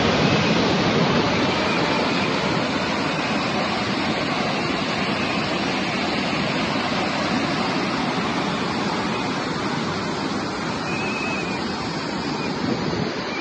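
Muddy floodwater pouring over an overflowing dam spillway and churning below it: a steady rushing of water, easing slightly toward the end.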